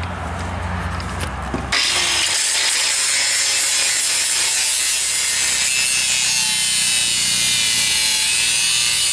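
Porter-Cable angle grinder grinding down a weld on the steel cab mount of a truck frame. A low hum at first, then about two seconds in the disc bites into the metal and a loud, steady grinding hiss takes over.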